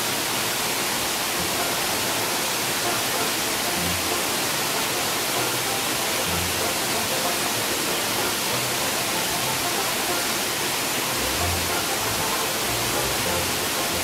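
Steady, loud rush of a waterfall and its fast-flowing stream, an unbroken hiss of falling water.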